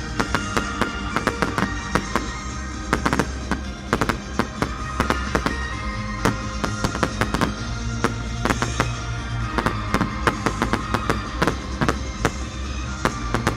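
Fireworks going off in a rapid, continuous run of bangs and crackles, over music playing with steady held notes.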